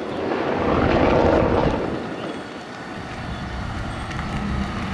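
A Mercedes-AMG GT Black Series' twin-turbo V8 as the car drives past. It swells to a peak about a second in and fades within about two seconds, leaving a lower, steady engine noise.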